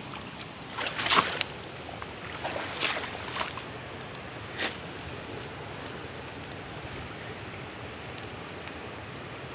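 Rustling, splashing movement through wet grass and mud, in a few short bursts in the first five seconds, the loudest about a second in. A steady high chorus of night insects sounds throughout.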